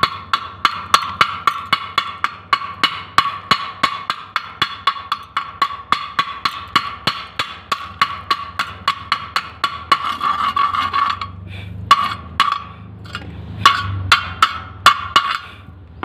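Hammer knocking slag off a fresh stick-welded fillet bead on steel, about four sharp, ringing strikes a second. After about ten seconds the strikes thin out to a few scattered taps as the slag comes clear of the bead.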